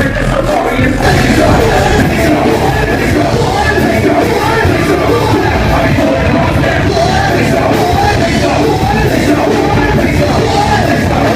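Live concert music played loud over a PA: heavy rock-style backing with a vocalist yelling and singing over it.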